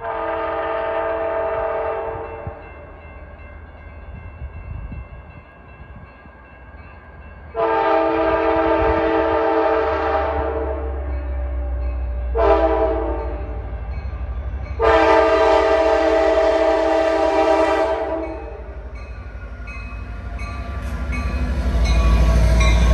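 A Sound Transit Sounder commuter train's diesel locomotive sounds its multi-note air horn four times: long, long, short, long, the standard warning pattern for a grade crossing. The train's low rumble grows as it comes close and passes.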